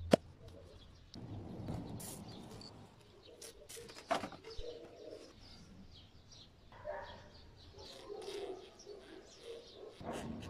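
Doves cooing in the background, with a sharp click just after the start and another about four seconds in.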